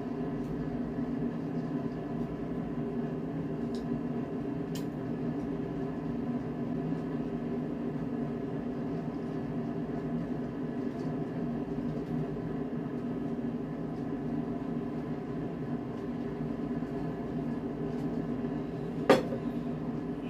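Steady mechanical hum of a room appliance, with a few light clicks and one sharp knock on the table near the end.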